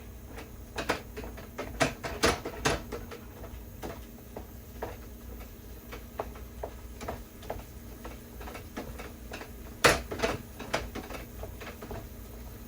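Irregular clicks and knocks of kitchen utensils at work, with a few louder knocks about two seconds in and near ten seconds.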